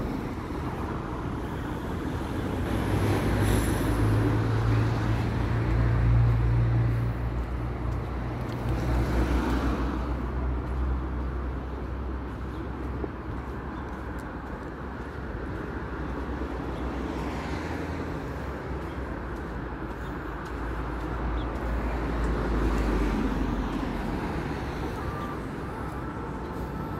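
Street traffic: motor vehicles passing with a low engine hum, louder at a few moments as cars go by, over a steady background of road noise.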